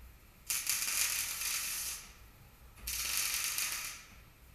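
MIG welding arc crackling in two bursts, the first about a second and a half long and the second just over a second, with a short pause between: two short weld runs.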